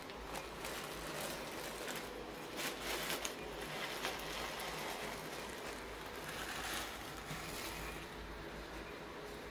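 Thin soft plastic snack bag crinkling and rustling as it is handled and opened, with scattered sharp crackles, most of them in the first few seconds.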